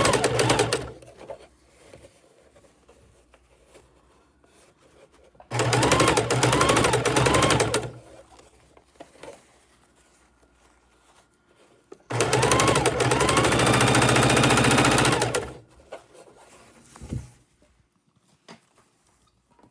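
Heavy-duty electric sewing machine stitching in three runs: briefly at the start, then for about two seconds, then for about three seconds, with short quiet pauses and a few small clicks between runs.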